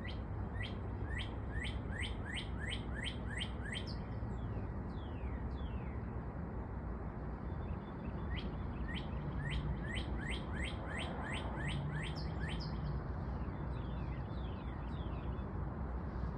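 A bird calling in quick runs of sharp descending chirps, about three a second: one run at the start and another about halfway through. A steady low rumbling noise runs underneath.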